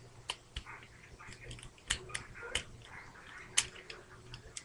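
Plastic parts of a Transformers Ironhide action figure clicking and knocking as they are twisted and folded by hand during transformation: scattered sharp clicks at irregular intervals, a few louder than the rest.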